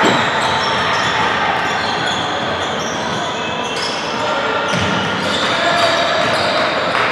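Live basketball game on a hardwood gym court: the ball bouncing, sneakers squeaking in many short chirps, and players' voices calling out over the steady hum of the hall.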